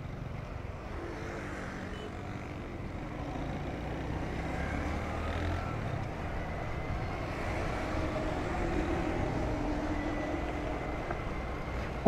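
Road traffic on a busy city road: a steady rumble of cars and motorcycles passing, with faint engine hums, swelling slightly in the middle.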